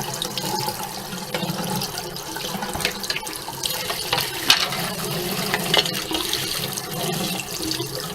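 Cold water running from a sink tap and splashing over a sanded plastic blaster part held under the stream, the flow broken by irregular spatter.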